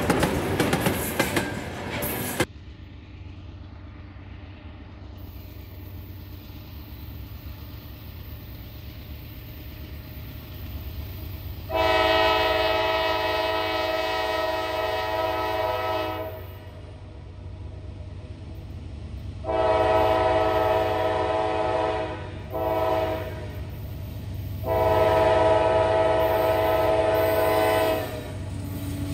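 Diesel freight locomotive horn sounding the grade-crossing signal, two long blasts, a short one and a final long one, over the steady low rumble of the locomotives. A loud opening sound cuts off about two seconds in.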